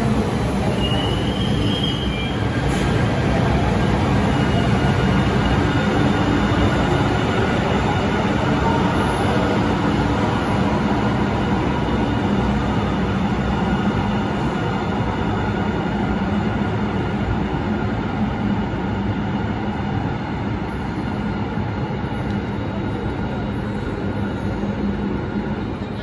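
LA Metro light rail train running through an underground station: continuous rumble of wheels on rail, with a steady high whine and a brief high squeal about a second in.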